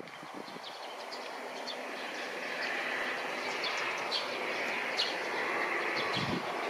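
Distant jet airliner engines after touchdown: a steady, broad roar that slowly grows louder, with small birds chirping briefly and repeatedly over it.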